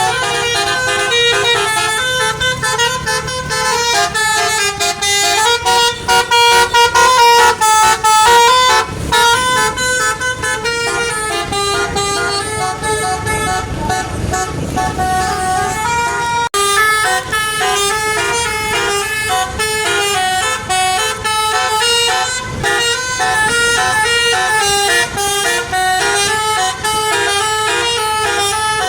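Telolet basuri horn on a tour bus playing a long, continuous melody of stepping multi-tone notes.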